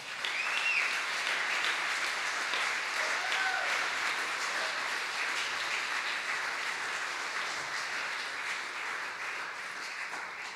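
Congregation applauding in a large room, a steady spread of clapping that holds for about ten seconds and tails off at the end.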